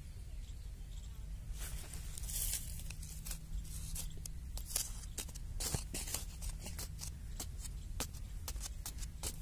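A hand digging tool chopping and scraping into dry, crumbly soil, digging a small pit. A quick, irregular run of scrapes and strikes, with soil crunching and scattering, starts about a second and a half in.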